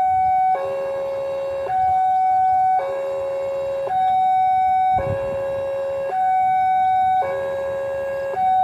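Electronic two-tone warning alarm at a railway level crossing, alternating between a lower and a higher tone about a second each. It signals an approaching train as the crossing barrier comes down.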